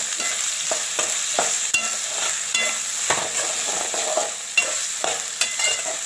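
Onions, green chillies and tomato sizzling in hot oil in an aluminium kadai, stirred with a metal spatula that scrapes and clinks against the pan many times over the steady hiss of frying.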